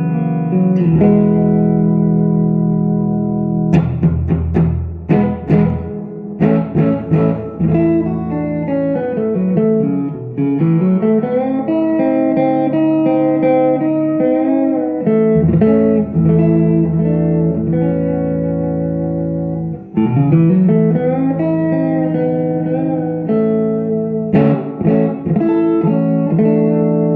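Electric guitar, a Silvertone 1413 with a Kay pancake pickup, played through a salvaged-parts tube amplifier with reverb into a 1957 Jensen P12Q speaker. It rings with held chords, with a run of quick strums a few seconds in and sliding or bent notes twice.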